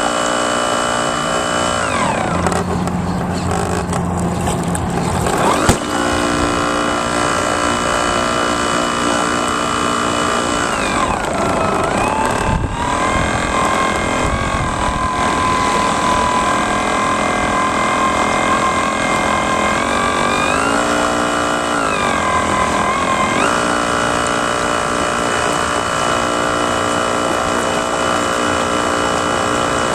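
Radio-controlled model boat motors whining steadily, the pitch falling about two seconds in and dipping and climbing again around eleven seconds and near the end, as the boats change speed. A single sharp knock about six seconds in.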